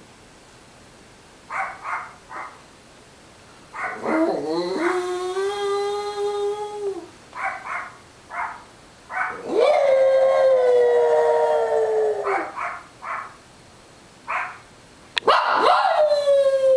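Small long-haired dog howling: three long howls, the second and third sliding down in pitch at the end, with short sharp yips between them.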